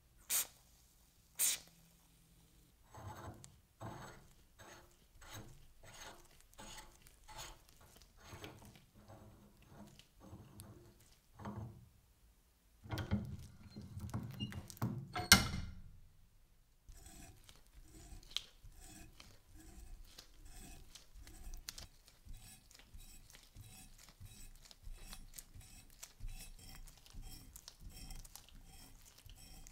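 Cutting a thread by hand: a die being worked around a metal tube in small repeated turns, each stroke a short scrape, after two short puffs of cutting oil from a spray can. Later comes a faster run of light ticking as a threaded metal part is turned into a tapped hole.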